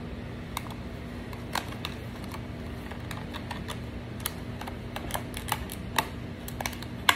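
Cardboard brush box being closed by hand, its top flap tucked in: scattered light clicks and taps at irregular spacing, with a sharper click near the end, over a steady low hum.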